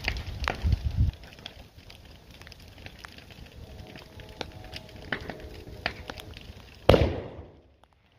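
Fireworks crackling and popping with many sharp cracks, heavier bangs in the first second and one loud bang about seven seconds in.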